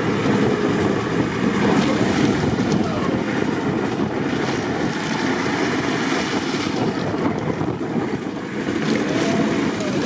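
4x4 SUV engine running under load as its mud-caked tyres churn through deep, wet peat mud, with wind on the microphone.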